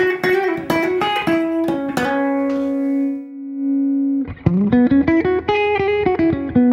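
Electric guitar played through a Thorpy Fat General compressor pedal in its pure-compression 'juice' mode, turned up so it sounds very compressed. A run of picked single notes, then one note held and sustaining for about two seconds, then more quick picked notes from about four seconds in.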